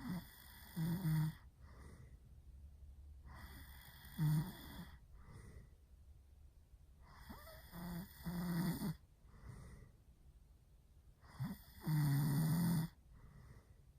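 A man snoring really loud with his mouth open: four long rasping snores about four seconds apart, each followed by a shorter, softer breath, the last snore the loudest.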